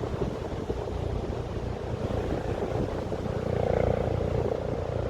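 Wind rumbling on the microphone. About three and a half seconds in, a steady engine drone comes in and holds.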